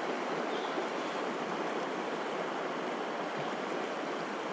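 River water rushing steadily over a shallow riffle of rocks, an even sound with no breaks.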